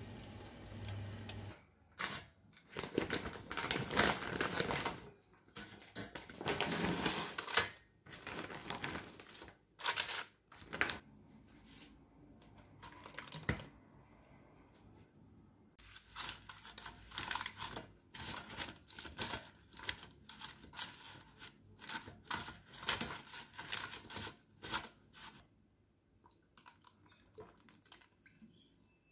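A hand spray bottle misting frozen dumplings in a paper-lined air fryer basket, in a series of hissing sprays, some long and many short ones in quick runs.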